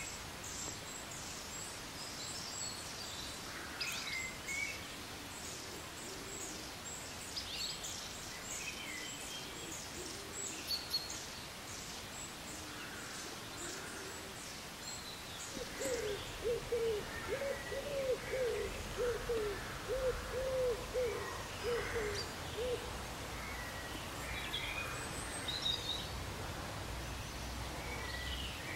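Outdoor birdsong: small birds chirping and trilling on and off. About halfway through, a run of low, evenly repeated hooting call notes, about two a second, lasts some seven seconds.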